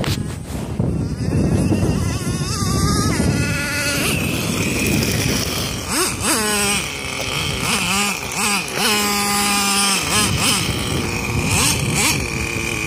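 Traxxas T-Maxx RC monster truck's .15 nitro engine revving up and down in repeated bursts, settling into a steady idle between them.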